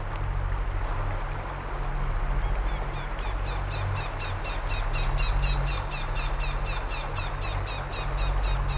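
Stream water running over rocks, a steady rushing under a low rumble. About two and a half seconds in, an animal's rapid high chirping starts, about four to five short calls a second, each dipping in pitch.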